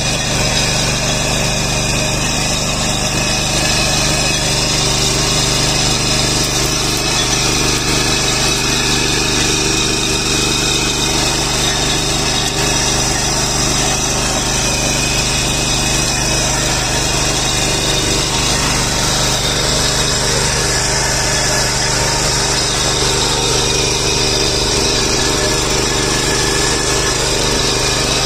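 Ittaly 9 hp power weeder's 177F single-cylinder petrol engine running steadily under load while its rotary tines till the soil.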